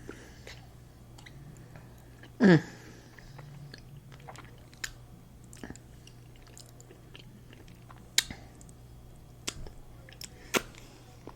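Close-miked eating: quiet chewing with scattered sharp bite and crunch clicks, the strongest near the end. About two and a half seconds in comes a short, loud sound that falls in pitch.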